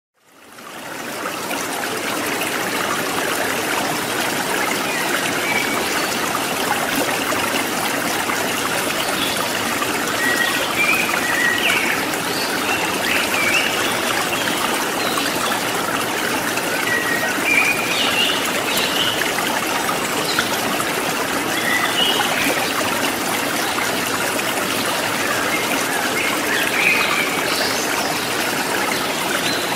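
Steady running water, like a trickling stream, fading in over the first second or so, with short high chirps now and then.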